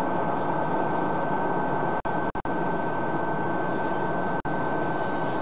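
Steady airliner cabin drone with a thin high whine running through it. The sound drops out briefly three times in quick succession about two seconds in, and once more near the end.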